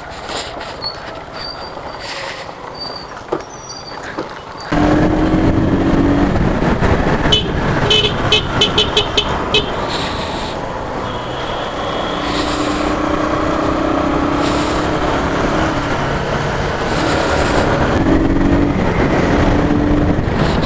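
Motorcycle riding along a road: engine and wind noise on the rider's microphone, much louder from about five seconds in. A horn sounds in several long honks.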